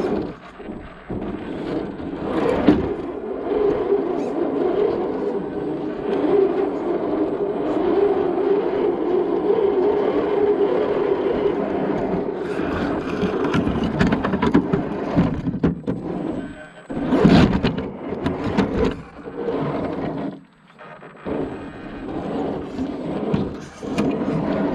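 Axial SCX10 II RC crawler's electric motor and gearbox whining steadily as it drives, with scrapes and knocks from its tyres and chassis on rough ground. A burst of sharp knocks comes past the middle, after which the whine eases off and picks up again.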